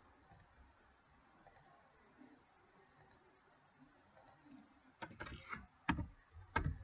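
Faint room noise, then a short cluster of sharp clicks from a computer keyboard and mouse about five seconds in, as a number is typed in and entered.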